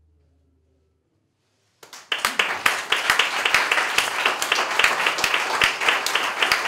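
The last low note of a solo cello fades away, followed by a second of near silence. Then a small audience starts clapping about two seconds in and keeps up steady applause.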